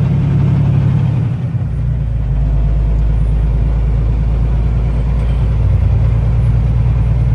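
Semi truck's diesel engine and road noise while driving, a steady low drone whose lowest part shifts about a second and a half in.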